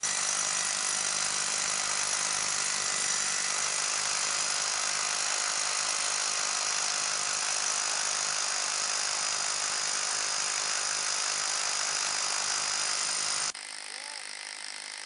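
Bosch hammer drill with a diamond core bit boring into a concrete curb: a loud, steady grinding whine. It cuts off abruptly about 13 seconds in, leaving a much quieter steady sound.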